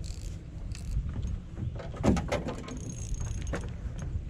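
Spinning reel being cranked to bring in a hooked trout, its gears clicking and rattling over a steady low rumble.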